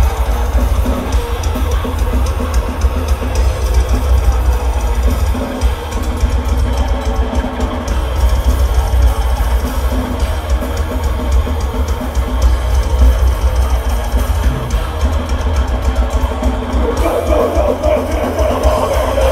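Death metal band playing live: distorted electric guitar, bass guitar and a Tama drum kit with a dense, fast bass drum, all at full volume through the stage sound system.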